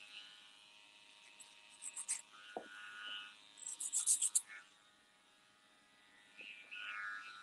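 Electric hair clipper buzzing as it is run over a comb at the nape to taper the neckline. There are short crackling flurries of the blade cutting hair about two seconds in and again around four seconds. The buzz falls quiet for a moment after that and picks up again near the end.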